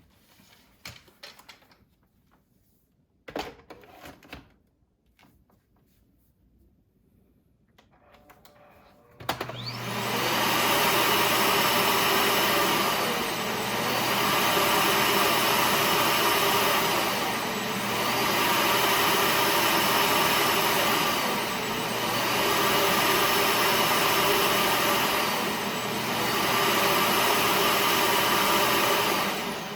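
A few faint clicks and knocks, then a Samsung Bespoke Jet cordless vacuum switches on abruptly about nine seconds in. It runs loud and steady, its sound swelling and easing in a regular cycle about every four seconds.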